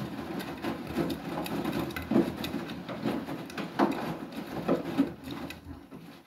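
Beko WTK104121W washing machine drum turning wet clothes: sloshing water with irregular soft thumps and knocks as the load tumbles, dying away near the end as the drum stops.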